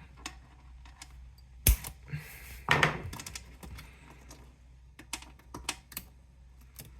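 Wire cutters snipping a plastic zip tie. There is one sharp snap about a second and a half in and another click about a second later, among light clicks of plastic parts and wires being handled.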